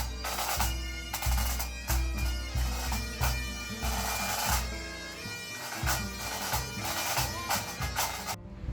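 A pipe band playing: bagpipes with their steady drones, and drums beating. It cuts off abruptly near the end.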